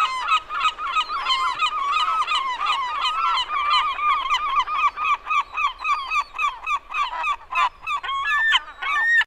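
A flock of gulls calling, a dense chorus of short, repeated, overlapping calls that stops abruptly.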